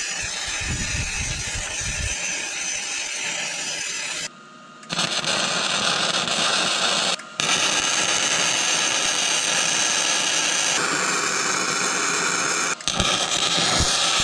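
MIG welding arc hissing steadily as a grouser cleat is welded onto a steel dozer track, in long beads that stop briefly about four, seven and thirteen seconds in.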